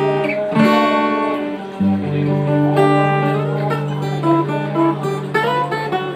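Instrumental music: a run of plucked notes over long held bass notes.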